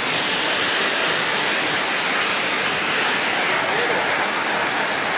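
Waterfall pouring into a rock pool: a steady rushing hiss of falling water.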